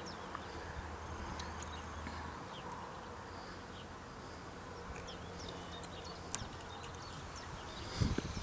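Outdoor ambience: a low buzzing hum that stops a couple of seconds in, scattered short high chirps throughout, and a dull thump near the end.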